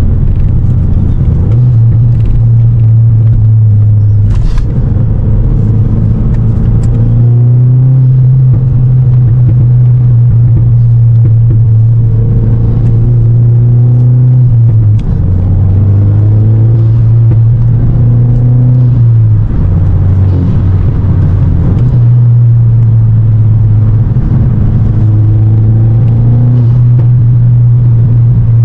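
Cabin sound of a 2023 VW MK8 GTI's 2.0-litre turbocharged four-cylinder under way: a loud, steady low drone that steps up and down in pitch several times, with the engine note climbing gradually and then dropping back, as the car accelerates and shifts.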